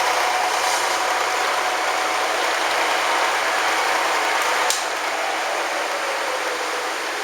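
Lagun FTV1 variable-speed vertical milling machine running, its spindle drive giving a steady mechanical hum with a faint whine. The machine has freshly replaced top bearings and a new belt. About two-thirds of the way through a click sounds, and the whine then slides down in pitch as the spindle slows.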